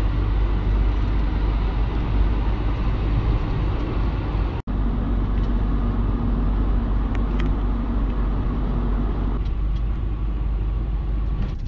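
Steady engine and road noise inside a moving van's cab, a deep rumble under a broad hiss. It cuts out for an instant a little under five seconds in, and the hiss drops somewhat about nine seconds in.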